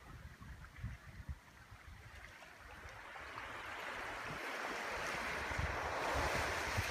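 Small sea waves washing onto a sandy beach. The wash swells over the second half and falls away near the end, with low wind rumble on the microphone underneath.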